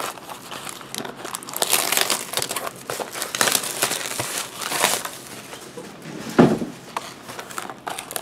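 Plastic wrapping crinkling and tearing as a sealed box of trading cards is opened, in irregular rustling bursts, with one dull thump about six seconds in.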